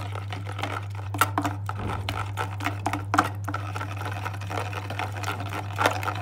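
Wire whisk beating crepe batter in a plastic container: a fast, irregular run of clicks and scrapes as the wires strike the sides and bottom of the tub. A steady low hum runs underneath.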